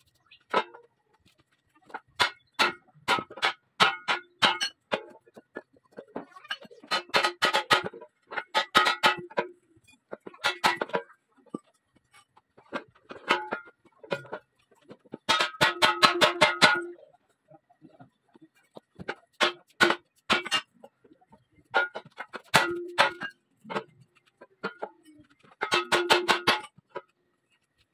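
Bursts of quick hammer blows, several to a burst every few seconds, driven through a wooden block onto a fishing-boat propeller blade, the metal blade ringing with each blow. The blade is being bent back into its proper curve, mis-set at a workshop so that the propeller vibrates at low revs.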